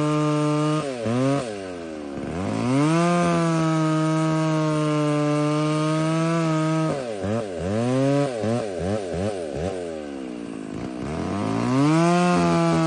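McCulloch Pro Mac 605 two-stroke chainsaw revved without load: held at high revs, dropped to idle and brought back up, then blipped quickly several times in the middle before dropping once more and revving up again near the end.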